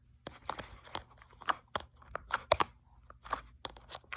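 Slime being squished and worked, giving irregular sharp crackling clicks and pops, a few each second.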